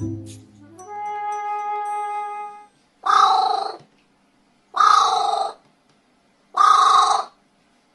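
Crow cawing three times, harsh calls each under a second long and evenly spaced. Before them a rising electronic slide tone climbs and holds.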